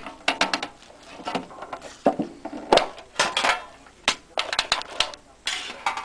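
A sealed trading-card box being cut open with a knife and handled: irregular clicks, knocks and short scraping and tearing noises of cardboard and wrapping.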